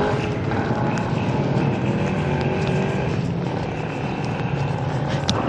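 Road traffic: a motor vehicle running past on the road, a steady engine drone over road noise.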